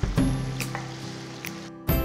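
Instrumental background music: held notes over a bass line, with a struck accent at each change of chord. A brief dropout comes near the end, just before a new chord starts.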